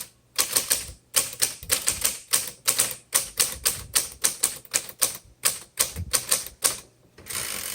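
Manual typewriter keys struck one after another at an even pace, about three strikes a second, followed near the end by a short rasping sweep.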